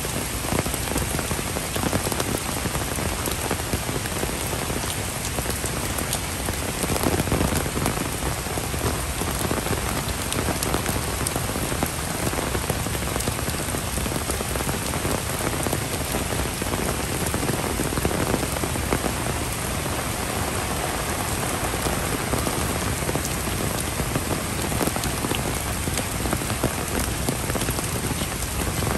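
Heavy rain pouring steadily onto wet paving and leafy tropical plants, an even, dense hiss.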